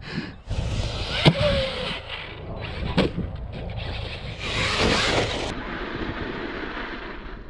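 Traxxas Maxx RC monster truck with a 6S brushless drive, running over grass and loose dirt. There are two sharp knocks, about a second in and about three seconds in, and a burst of tyre hiss and flung dirt around the middle.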